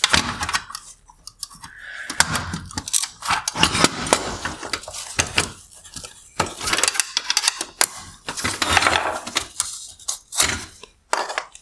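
A flathead screwdriver prying the plastic tabs of a Mercedes SL bi-xenon headlight's projector bezel: irregular bursts of sharp plastic clicks, snaps and scraping, with short pauses between them.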